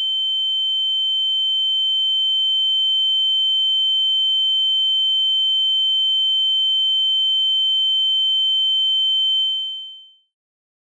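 A steady, high-pitched electronic tone held at one pitch, with a much fainter lower tone beneath it, swelling slightly and then fading out quickly near the end.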